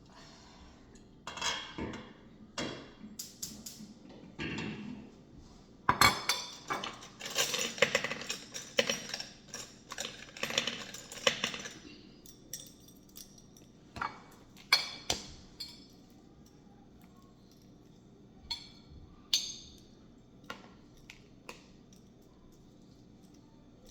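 Kitchen utensils clinking and clattering against dishes and bowls. There is a dense run of rapid clinks in the middle, then a few scattered knocks.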